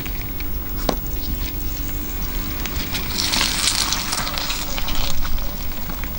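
Car tyre rolling slowly over brick paving, with a steady crackling of grit under the tread over a low, steady rumble. There is a sharp click about a second in and a louder, brighter spell of crackling around the middle.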